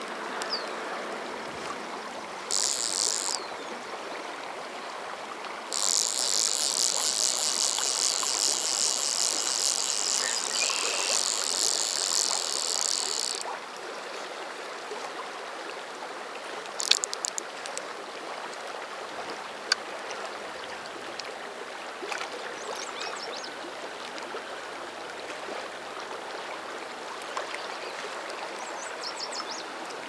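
River current rushing steadily. Over it, a loud, high-pitched, fast-ticking buzz sounds once briefly and then again for about eight seconds before cutting off, and a few sharp clicks follow a few seconds later.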